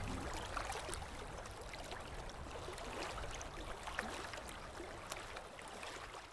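Soft running-water sound effect, a trickling stream with scattered small drips, slowly fading out.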